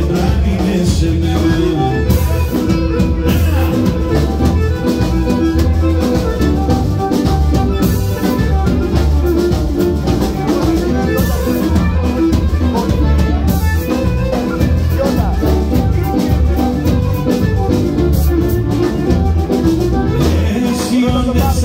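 Live Pontic Greek dance music, amplified and loud, with a steady drum-kit beat and bass under a sustained melody line.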